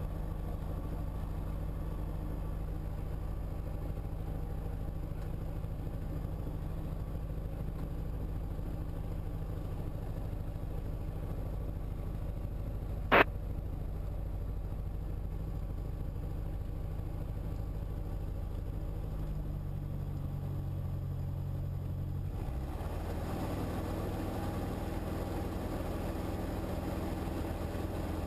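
Diamond light aircraft's piston engine and propeller running steadily while the plane taxis onto the runway, with a single sharp click about halfway. Near the end the engine note changes and grows fuller as power comes up for the takeoff.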